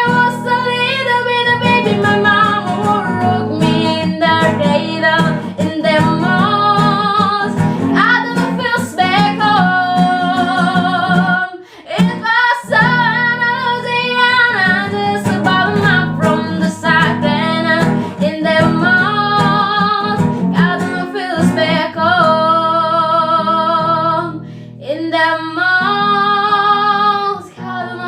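A young girl singing a melody solo with vibrato on the held notes, over instrumental accompaniment.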